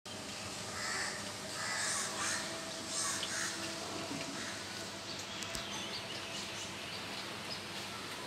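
Steady hiss of rain falling on trees and a wet street, with a crow cawing several times in the first few seconds.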